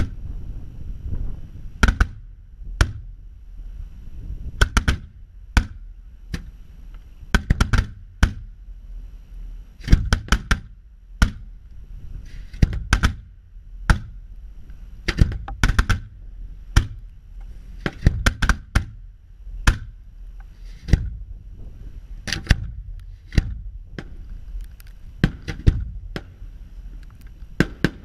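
Fireworks display: aerial shells bursting overhead in a rapid, irregular string of sharp bangs, often several close together, with a low rumble lingering between them.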